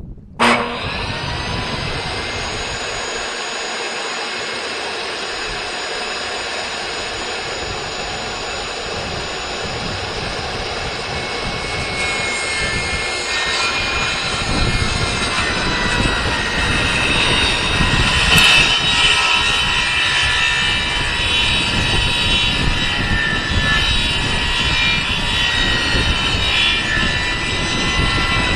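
Kobalt table saw switched on about half a second in, its motor whining up to speed and then running steadily. From about halfway on the sound grows louder and rougher as the blade cuts through 3/4-inch plywood.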